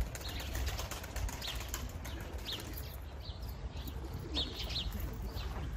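Turkish tumbler pigeons in their loft cooing softly, with a few short, high bird chirps scattered through, over a low steady rumble.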